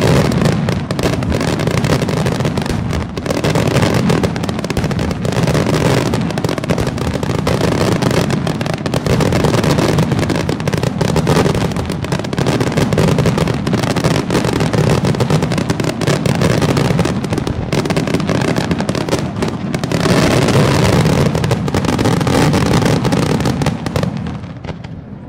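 Aerial firework shells bursting in a dense, continuous barrage of bangs and crackles, dying away just before the end.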